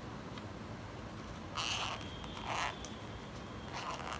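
Zipper of a small round zippered earphone case being pulled open in three short strokes, about one and a half, two and a half and four seconds in.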